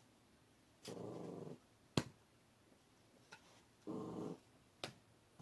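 A dog growling in two short rumbling bursts, about a second in and again about four seconds in, the sign of one dog warning off another. A sharp click sounds between them.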